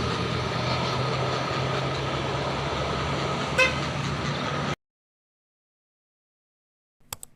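A tour bus running close by with a steady engine sound and a brief sharp blip about three and a half seconds in. The sound cuts off abruptly about two-thirds of the way through, leaving dead silence, then a few faint clicks at the very end.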